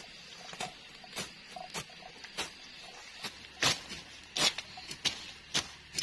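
A hand blade cutting through dry grass and weeds: a run of short, crisp swishing strikes, about one or two a second, with a few louder cuts in the second half.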